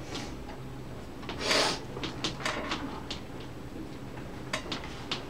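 Chalk writing on a blackboard: a run of sharp taps and short scratching strokes, with one longer, louder scrape about a second and a half in. A steady low hum sits underneath.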